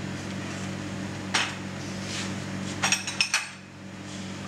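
Kitchen utensils and dishes clinking and knocking on the counter: one knock about a second and a half in, then a quick cluster of clinks about three seconds in, over a steady low hum.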